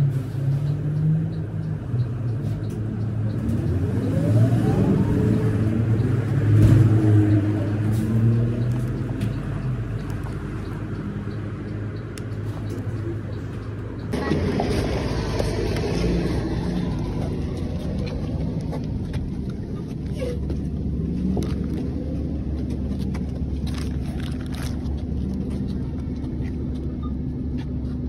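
Steady low rumble of a motor vehicle, with a rising engine note a few seconds in. The sound changes abruptly about halfway through.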